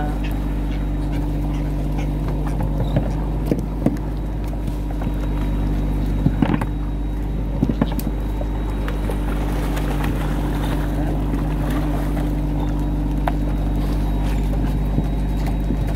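A boat engine running steadily, a low even drone, with a few sharp knocks at about 3½, 6½ and 8 seconds in.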